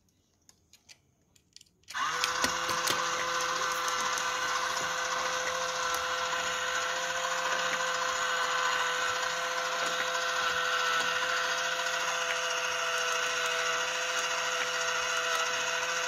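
Discovery MINDBLOWN four-cylinder model engine kit, set running on its small electric drive, which turns the plastic crankshaft, pistons, valve gear and fan. It starts suddenly about two seconds in with a steady whirring whine and light ticking.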